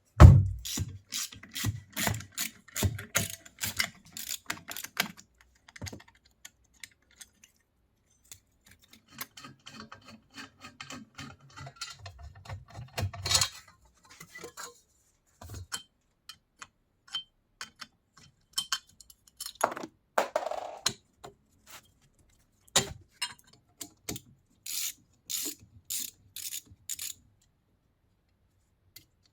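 Metal parts and hand tools being handled during workshop restoration work. A loud knock at the start gives way to a run of sharp metallic clicks and taps. A stretch of ratcheting and scraping follows in the middle, then a short rasp, and near the end a row of evenly spaced clicks.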